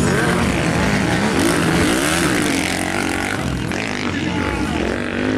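Motocross bike engine revving on the dirt track, its pitch rising and falling several times as the rider works the throttle and gears.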